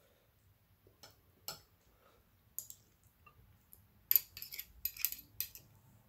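Eating utensil clicking against a dish of clams in their shells: a few faint, scattered clicks, then a quick run of sharper clinks about four to five and a half seconds in.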